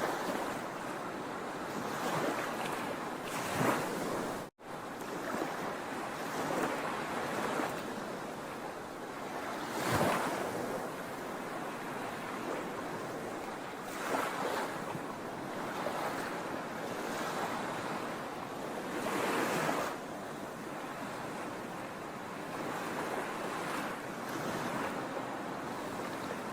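Sea waves breaking on a shore: a continuous wash of surf with several louder surges as waves come in. The sound cuts out for an instant about four and a half seconds in.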